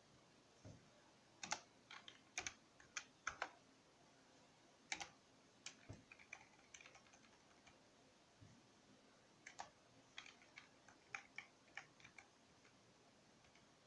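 Computer keyboard being typed on: short irregular runs of key clicks with pauses between them, over a very quiet background.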